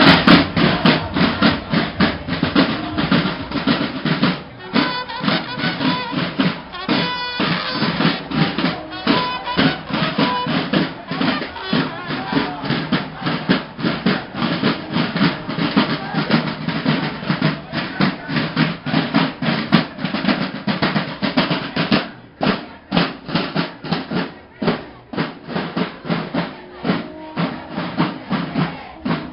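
Drums beaten in a fast, continuous rhythm by marchers, with many close strikes a second.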